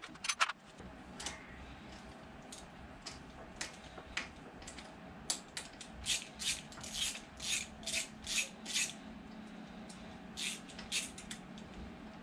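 Hand ratchet being worked on engine bolts: a couple of sharp metal knocks at first, then a regular run of short ratcheting strokes, about two to three a second, with a few more near the end.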